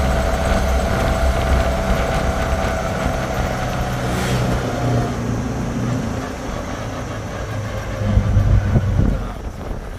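Auto-rickshaw engine running with road rumble, heard from aboard while riding. A thin steady whine fades out about halfway through, and a louder low rumble swells near the end.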